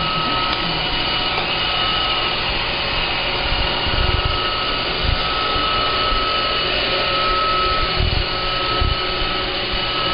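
Roomba robot vacuum running steadily, a constant motor whine over its brush and suction noise, with a few low thumps along the way.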